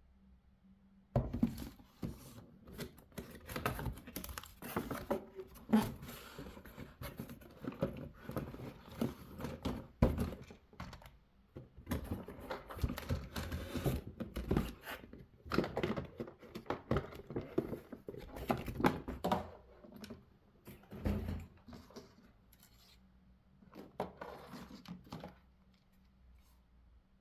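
Hands unpacking a boxed toy: irregular rustling, tearing, clicks and knocks of packaging being handled, starting about a second in and dying away near the end.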